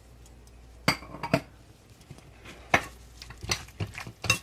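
A spoon clinking against a mixing bowl: about six sharp clinks at uneven intervals, starting about a second in, as sauce-coated chicken is handled and mixed.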